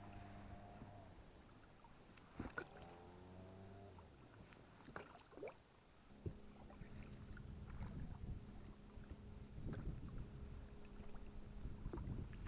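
A small fishing boat getting under way on the water: a steady low hum that drops away about a second in and comes back after about six seconds, with a few sharp knocks in between.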